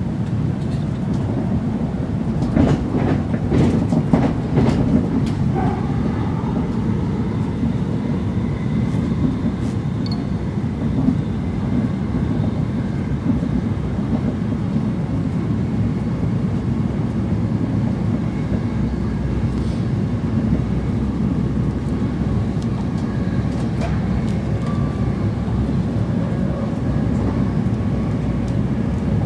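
Passenger train running along the track, heard from inside the carriage: a steady low rumble, with a cluster of sharp clicks and knocks from about three to five seconds in.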